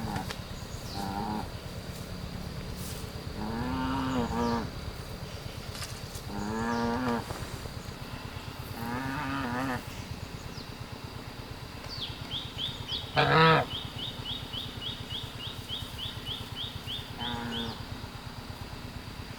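A farm animal calling repeatedly: six drawn-out calls, each about a second long, the loudest just past the middle. Under them runs a steady high insect whine, and a fast chirping of about three a second runs through the second half.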